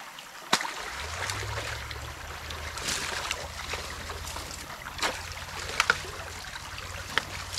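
Creek water moving at a beaver dam being pulled apart, with a few short sharp clicks and knocks of sticks, over a steady low rumble that sets in about a second in.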